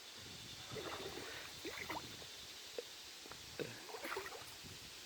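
Faint river water gurgling and trickling, with a few small splashes and drips and one sharp click near the middle.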